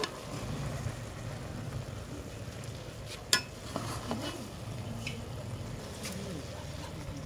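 A steel ladle stirring and turning cooked pulao rice in an aluminium pot, with a few clinks of the ladle against the pot, the sharpest about three seconds in, over a steady low rumble.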